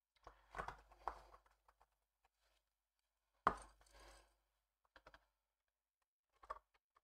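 Hands handling small plastic model-kit parts on a cutting mat: scattered soft clicks and rustles, with one sharper tap about three and a half seconds in.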